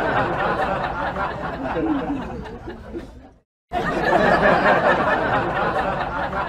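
Canned audience laughter, many voices laughing at once, cutting off about three and a half seconds in and starting again a moment later.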